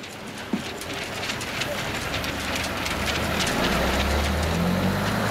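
Large vehicle engine, most likely the departing tour bus, running with a low rumble that grows louder from about two seconds in, with scattered sharp clicks.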